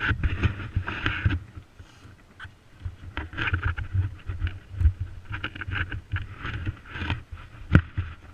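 Body-mounted camera picking up a player on the move: uneven footfalls and the rustle and knock of clothing and gear rubbing the microphone, with a few sharp clicks, the clearest near the end.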